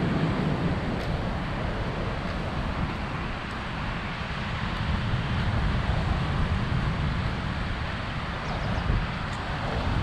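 Wind buffeting the microphone, an uneven low rumble, over a steady background hiss of surf and street.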